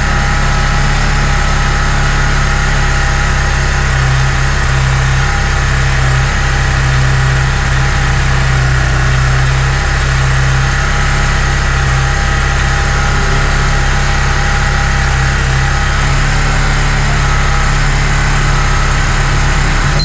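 Kawasaki Barako 2's single-cylinder four-stroke engine idling steadily, warming up on its very first start.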